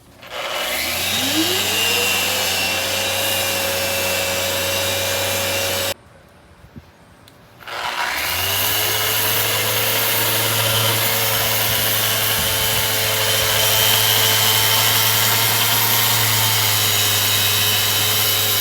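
Electric sander sanding old bottom paint off a fiberglass boat hull. It starts with a rising whine as the motor spins up, runs steadily, cuts off suddenly, then starts and spins up again about two seconds later and runs on steadily.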